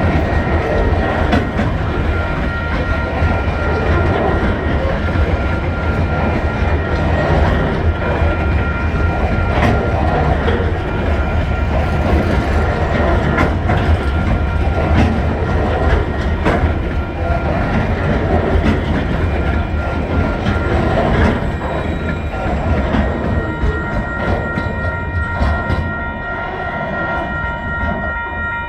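Coal train wagons rolling past, with a steady heavy low rumble and the wheels clacking over rail joints. Several steady high ringing tones sound above it and become clearer near the end as the rumble eases.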